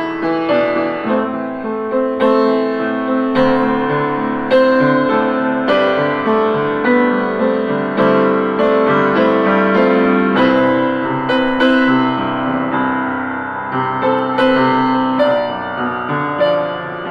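Upright piano played solo: a flowing melody over chords, new notes struck every fraction of a second and left ringing into each other.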